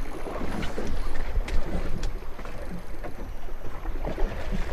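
Wind buffeting the microphone over water lapping against a small boat's hull, with a few faint knocks.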